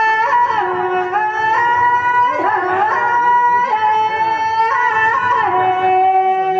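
Live folk music accompaniment for Tejaji devotional singing: a melody of long, steady held notes that step from pitch to pitch.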